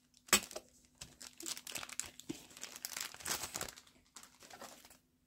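Clear plastic bag crinkling and rustling as hands handle it and pull a small plastic part out, with a sharp click about a third of a second in. The rustling is densest in the middle and fades to a few faint crinkles near the end.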